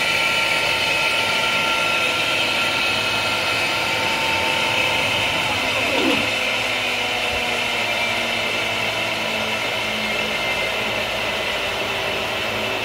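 CNC router surfacing an MDF spoilboard: the spindle runs at a steady high whine over the hiss of dust extraction through the brush dust shoe. One tone slides down in pitch about six seconds in as the machine changes its motion.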